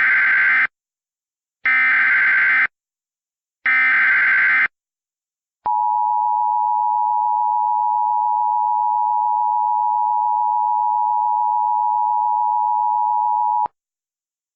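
Emergency Alert System SAME header: three buzzy one-second bursts of digital data about two seconds apart. These are followed by the steady, piercing EAS attention tone, held about eight seconds and then cut off suddenly. Here they open a flash flood warning alert.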